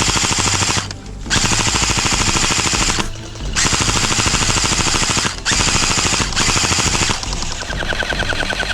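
Airsoft guns firing long full-auto bursts: a fast, even rattle of shots in about four bursts broken by short pauses. Over the last second and a half the firing turns into a steadier, buzzier rattle with a higher tone in it.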